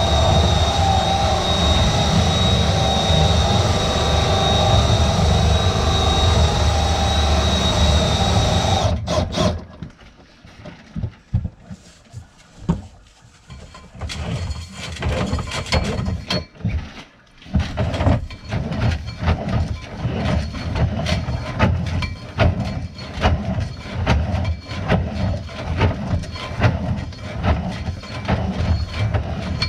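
Drain-cleaning machine running steadily with a motor whine, then shutting off about nine seconds in. After a short lull, a fast, irregular run of metallic clicks and knocks, like cable clattering as it is worked through the line.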